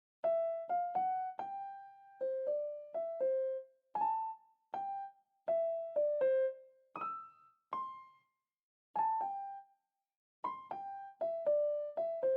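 Background music: a simple, slow melody played one note at a time on a piano-like electric keyboard, in short phrases separated by brief pauses.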